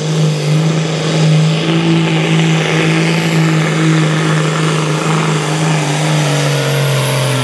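Diesel engine of a black Case IH Magnum 4500 kg Supersport pulling tractor running at full power under load while hauling the weight sled. A loud, steady engine note that drops slightly in pitch near the end.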